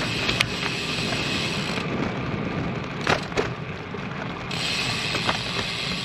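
Road bike's rear hub freewheel ratcheting as the rider coasts, over steady rolling and wind noise, with a few brief clicks.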